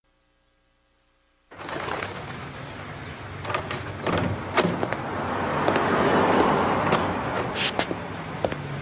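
Street ambience with birds chirping and a steady background noise that swells about halfway through. A few sharp clicks come near the end as the front door of a terraced house is unlatched and opened. It starts after about a second and a half of silence.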